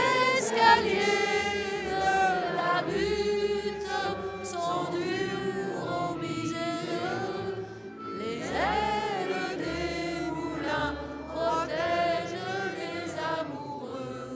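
A French song sung by voices together over instrumental backing. The song is sung in sustained, wavering lines and fades out near the end.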